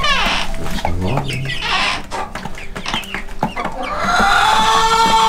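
Young chickens peeping and clucking, opening with a quick run of falling peeps.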